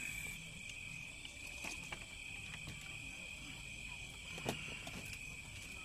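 Night insects such as crickets trilling steadily and high-pitched. A few faint clicks sound over them, the sharpest about four and a half seconds in.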